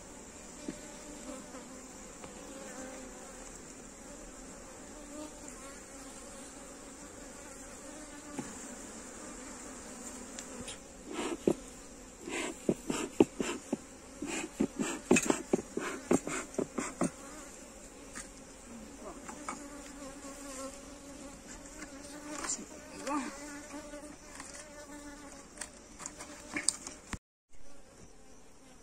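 Honeybee colony buzzing steadily in an open hive. A run of knocks and clatter from the hive equipment comes in the middle.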